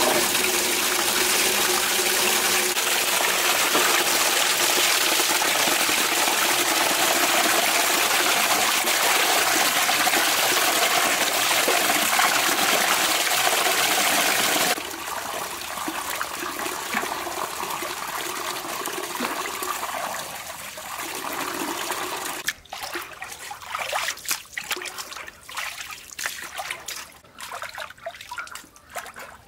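Tap water gushing from a PVC pipe into a large metal basin while raw chicken legs are rinsed under the stream. About halfway through the rush drops suddenly, and later gives way to irregular splashing and dripping as hands work the chicken in the basin water.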